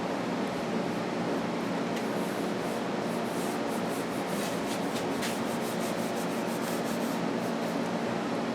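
Paintbrush stroking wood stain onto a wooden board, a brushing rub, with a run of quicker strokes in the middle, over a steady low hum.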